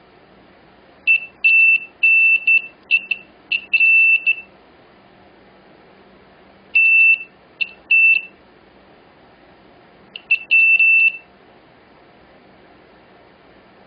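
A multimeter's beeper sounding in irregular short and longer beeps, all on one high steady pitch, as the probes touch and lift off the capacitors and filters on the logic board. It comes in three clusters: several beeps about a second in, three more in the middle, and a few near the end.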